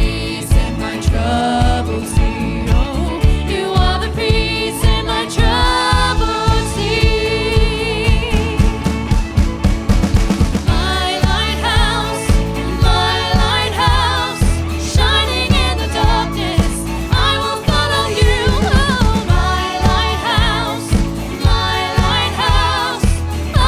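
Worship song playing: sung vocals over a full band accompaniment with a steady beat.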